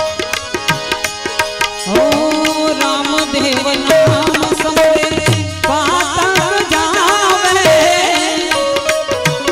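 Devotional bhajan music without words: held harmonium-like notes over a fast, dense tabla beat. A wavering, bending melody line enters a little past the middle.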